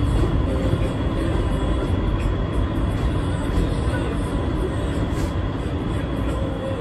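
NYC subway train running on elevated track, heard from inside the front car: a steady rumble of wheels on the rails with a faint steady high whine, getting gradually quieter toward the end.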